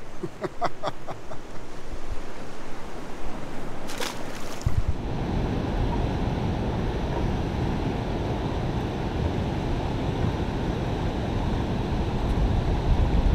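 Steady rush of wind buffeting the microphone with water noise around a boat on a river, turning suddenly louder and heavier about four and a half seconds in, just after one brief sharp hit. A few short squeaks sound in the first second or so.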